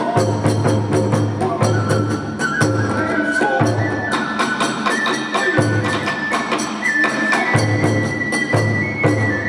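Kagura festival music played live: a bamboo transverse flute holds long notes that step upward in pitch, over a fast, steady beat of drum strokes and small metal hand cymbals.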